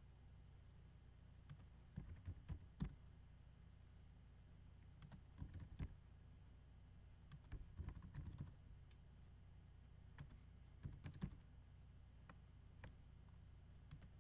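Faint typing on a computer keyboard, keystrokes coming in short bursts every couple of seconds with pauses between, over a low steady hum.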